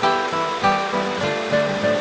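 Background music: a plucked-string instrumental piece, notes picked in a flowing melody over held bass notes.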